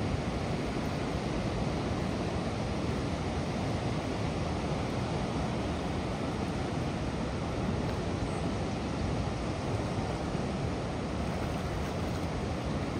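Floodwater pouring over a low dam between concrete piers and churning in the river below: a steady, even rush of water.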